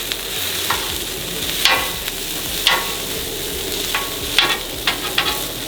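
Food frying on a hot flat-top griddle: a steady sizzle while it is stirred, broken about once a second by sharp scrapes and taps of a metal spatula on the cooking surface.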